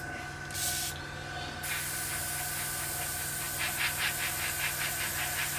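Airbrush spraying paint at low pressure, 8 to 10 psi: a hiss that starts and stops twice in the first second and a half as the trigger is worked, then runs on steadily over a low hum.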